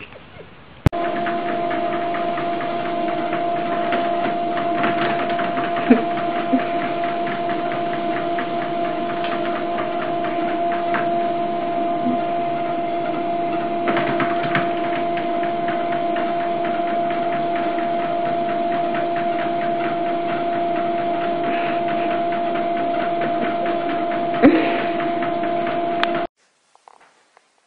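Electric treadmill running: a steady motor whine over the hiss of the moving belt, with a few brief knocks as a cat walks on the belt. It starts abruptly about a second in and cuts off near the end.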